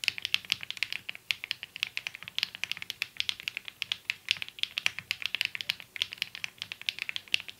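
Mechanical keyboard being typed on quickly, a dense run of sharp key clacks several times a second, stopping abruptly at the end.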